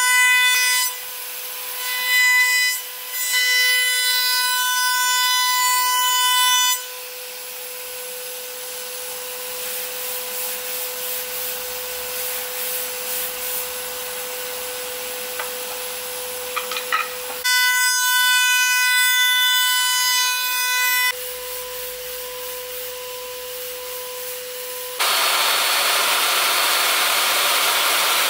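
CNC router spindle whining at a steady high pitch, with a stack of overtones while it cuts into wood and a plainer whine in between. About 25 s in, a loud, even rushing noise of a table saw running takes over.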